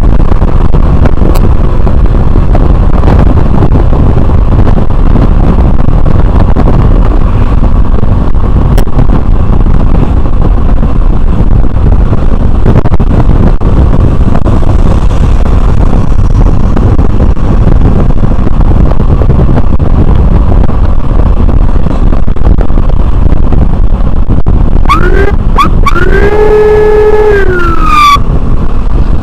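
Loud, steady wind rush and road noise of a motorbike riding at speed. Near the end an electronic siren gives two short rising whoops, then one longer wail that drops away.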